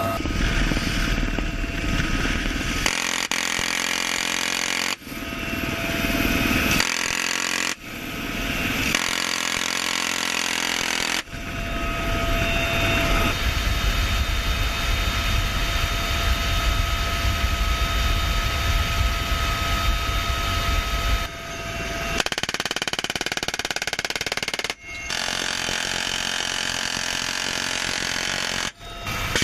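Bell UH-1Y Venom twin-engine helicopter running, rotor and turbine noise with a steady high whine. The sound changes abruptly several times as one clip cuts to the next.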